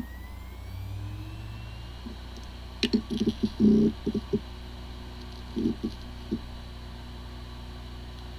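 A hard drive running with a steady hum. A rising spin-up whine fills the first two seconds, followed by a run of short clicks and knocks about three seconds in and a smaller group about a second and a half later.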